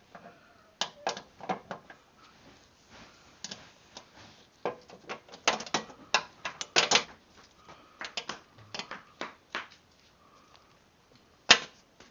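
Wrench clicking and clinking on the spindle bolts' nuts as they are tightened, in irregular clusters, with one sharper metal knock near the end.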